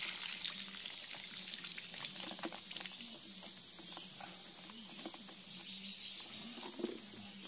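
Water pouring and splashing onto gravel as a plastic-bottle fish trap is drained through a hole in its side. The flow thins to a trickle and drips after a few seconds. A steady, high-pitched chorus of insects runs underneath and is the most constant sound.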